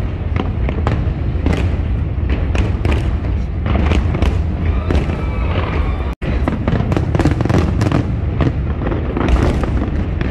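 Fireworks going off in rapid succession: a dense run of bangs and crackles over a constant low rumble. The sound cuts out for an instant just after six seconds in.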